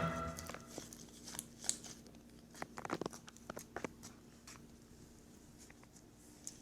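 Faint crinkling and scattered small clicks, with a short cluster of them about three seconds in, over a faint steady low hum.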